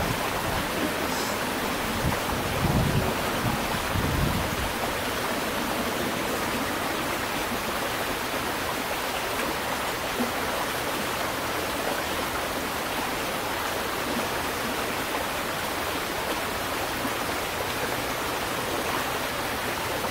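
Steady rushing of flowing water, like a stream, with a few low thuds about two to four seconds in.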